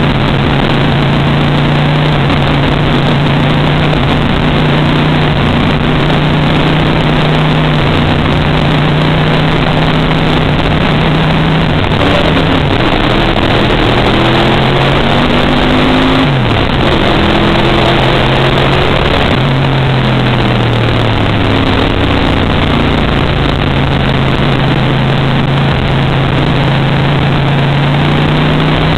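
Race car engine heard loud from inside the cockpit, running at speed at a steady pitch. About halfway through the note falls and rises several times, with one sudden drop in pitch, then holds steady again and starts to climb near the end.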